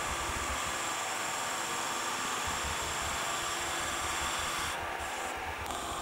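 Metal lathe running steadily while a boring bar cuts a large bore in an aluminium block, a continuous machining hiss and whir. The high part of the hiss drops out briefly twice near the end.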